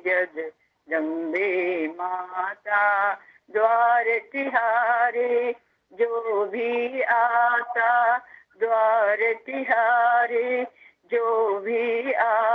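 A woman singing a Hindi devotional bhajan to Mother Jagdambe, solo and unaccompanied. She sings in phrases with a wavering, ornamented pitch and takes short breaths between them.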